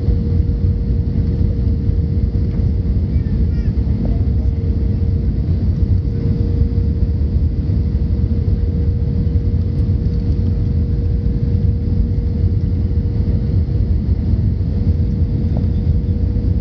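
Steady cabin noise inside a jet airliner descending to land: a loud, even rumble of engines and airflow, with a faint steady hum above it.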